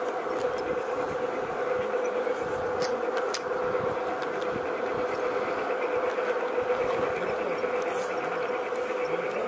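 A G-scale garden railway train running along its track, heard from on board: a steady buzzing whine from the locomotive's electric motor and gears, over the rolling noise of wheels on the rails, with a few faint clicks.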